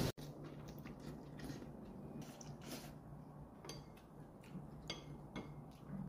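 Faint, scattered clinks and taps of chopsticks and a spoon against bowls and dishes during a meal, about half a dozen in all, over a low steady hum.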